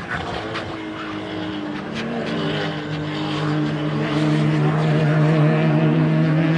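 A car engine running steadily, starting abruptly and growing louder over the first few seconds, its pitch edging up slightly, with a few faint clicks.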